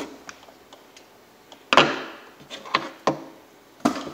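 A few sharp knocks and clicks of hand tools and small engine parts being handled on a workbench, the loudest about two seconds in and a last one near the end.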